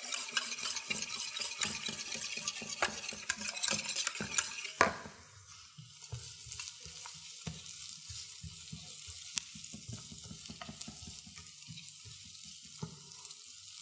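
Chopped onion sizzling in hot oil in a frying pan, with a cooking utensil scraping and clicking against the pan for the first five seconds or so. Then the stirring stops and a quieter sizzle goes on, with a few light taps.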